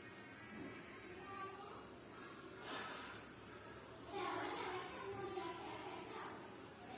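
Insects, crickets by their sound, trilling steadily in one high, unbroken, pulsing tone. Faint voices come through briefly about four seconds in.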